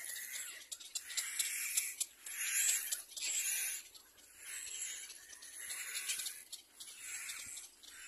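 Cormorant chicks in the nest giving hoarse, wheezy begging calls, a hissing call about once a second, loudest between two and three and a half seconds in.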